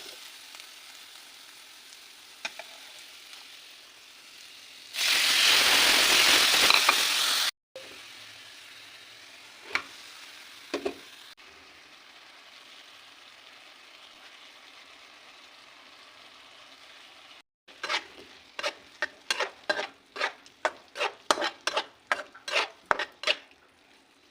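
Food sizzling as it fries in a pan, with a loud burst of sizzling about five seconds in that lasts a couple of seconds. Near the end a utensil stirs and scrapes in the pan, striking it about twice a second.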